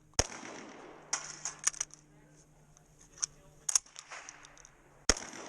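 Two loud shotgun shots about five seconds apart, with smaller sharp clicks and reports in between. The shotgun is not cycling on its own.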